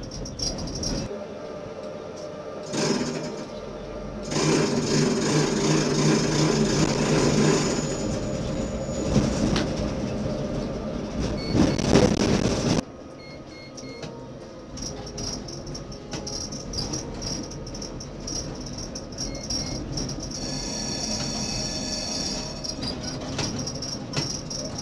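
Tram running on its rails, with motor and wheel noise from on board. The sound jumps suddenly in level a few times, is loudest just before the middle, then drops abruptly.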